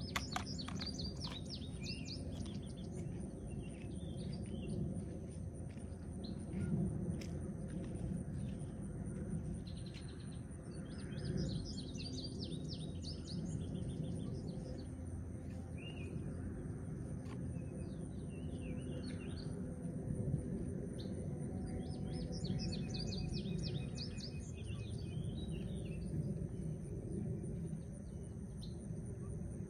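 Songbirds singing in short chirping, trilling phrases every few seconds over a steady low background rumble.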